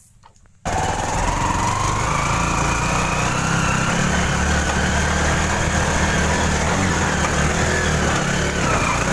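Small motorcycle-type engine running under way, carrying the vehicle along. It cuts in abruptly about half a second in, with a whine that rises over the next couple of seconds and then holds steady.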